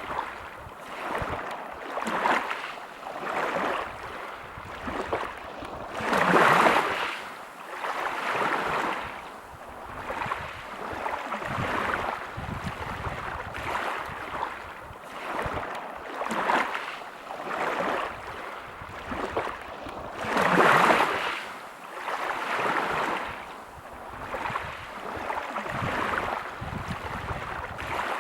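Waves breaking on a pebble beach, the surf swelling and ebbing every couple of seconds. Two larger waves break about six and twenty seconds in.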